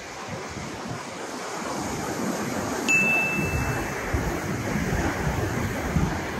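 Surf on a beach and wind buffeting the microphone, getting stronger partway through, with a single clear ding, a held tone of about a second, about three seconds in.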